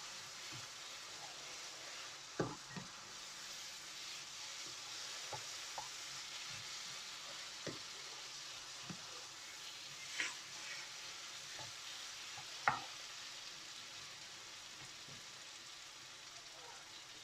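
Curry frying in a pan: a steady sizzle while it is stirred, with a handful of sharp knocks of the utensil against the pan, the loudest about two and a half seconds in and near thirteen seconds in.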